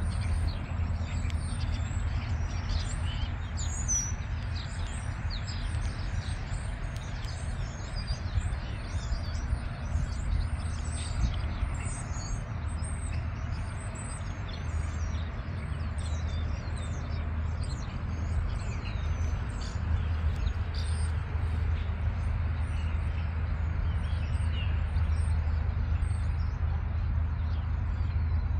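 Birds chirping and twittering throughout, over a steady low rumble from the diesel locomotives of an approaching CSX freight train.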